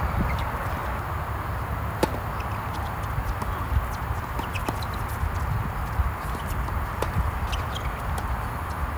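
Tennis ball struck by racquets and bouncing on a hard court during a doubles rally: sharp, separate pops about a second or so apart, over a steady low background rumble.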